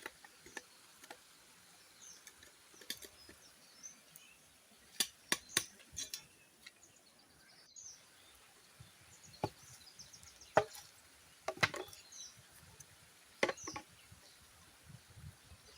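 Irregular sharp knocks and taps, the loudest about halfway through, with faint bird chirps in the background.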